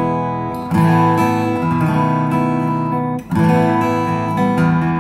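Aria W-20D dreadnought acoustic guitar with a spruce top and mahogany back and sides, played with chords struck and left to ring. A fresh chord comes in under a second in and another just past three seconds in.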